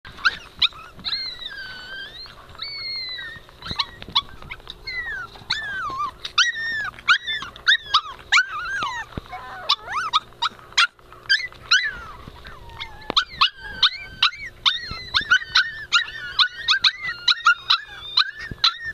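Two-month-old Tibetan Spaniel puppies whining and yelping: high cries that rise and fall in pitch, with short sharp yips coming thick and fast in the second half.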